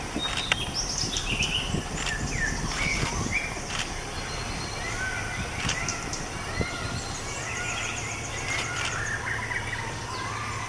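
Forest birds calling: many short chirps and whistled notes that rise and fall, overlapping throughout, with a few sharp snaps and a steady low background hum.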